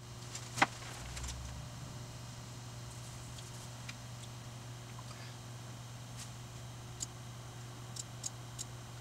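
Low steady electrical hum with a few faint sharp clicks scattered through it, the loudest about half a second in and a small cluster near the end.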